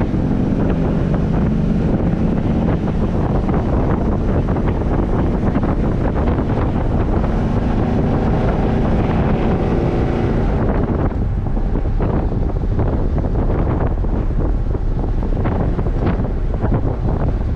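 Chevrolet El Camino driving down the street: steady engine and road noise with wind buffeting the microphone, going duller about ten seconds in.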